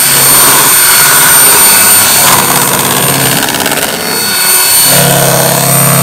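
Electric stand mixer running, its twin beaters whipping eggs, sugar and SP emulsifier into a pale foam for brownie batter. The steady motor hum dips briefly about four seconds in, then comes back stronger.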